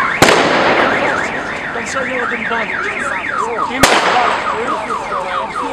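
A car alarm wailing with a fast up-and-down warble, set off in the street, with two sharp firecracker bangs: one about a quarter second in and a second about four seconds in.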